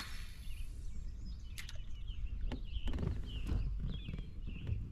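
Small birds chirping on and off over a low rumble of outdoor noise. Right at the start there is a quick whoosh of a fishing cast, with a few sharp clicks later on.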